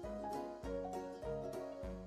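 Instrumental background music: melodic notes over a steady beat of a little under two beats a second.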